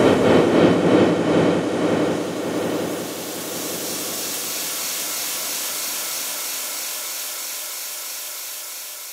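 Outro of a dubstep track. The last dense, loud bars give way about three seconds in to a steady hiss-like noise wash with faint held tones, which slowly fades out.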